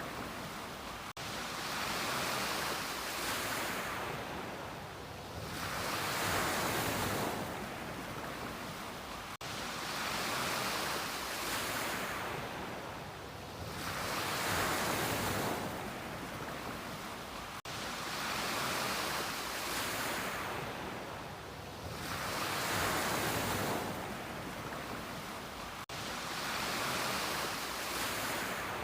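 Ocean waves breaking on a beach, the surf swelling and washing back in a slow rhythm of about one wave every four seconds.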